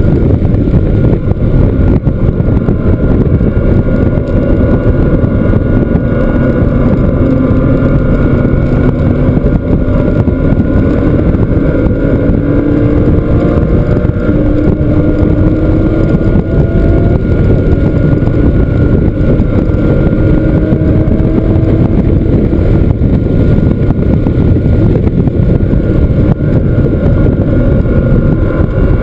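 Porsche flat-six engine running hard under acceleration, loud, its pitch rising slowly through long pulls, over heavy wind and road noise.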